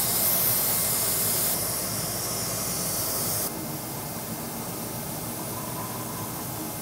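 Airbrush spraying gloss black lacquer, a steady hiss of compressed air. The hiss drops abruptly about a second and a half in and again about halfway through.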